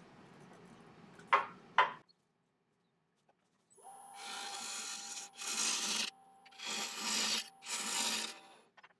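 A turning tool cutting a laburnum bowl spinning on a wood lathe: four rasping cuts, each up to about a second and a half long, starting about four seconds in. Two sharp clicks come before them.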